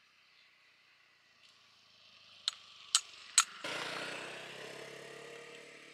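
Three sharp metallic clicks about half a second apart, then a machine starts abruptly and runs with a steady hum and a loud hiss that eases off slowly.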